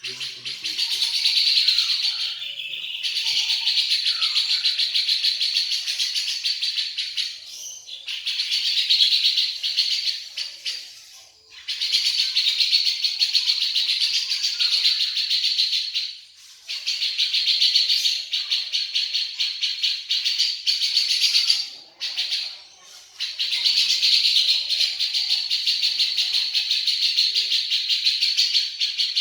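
Cucak jenggot (grey-cheeked bulbul) singing a fast, rattling chatter of sparrow-like notes in bouts of several seconds, broken by short pauses.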